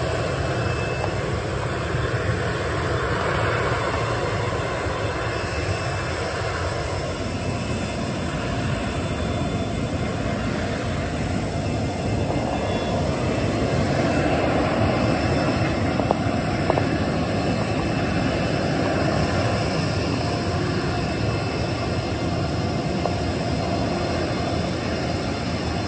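Steady jet engine noise from a taxiing Boeing 737-800's twin turbofans running at taxi power, a broad hiss and rumble with a faint high whine, swelling a little about halfway through.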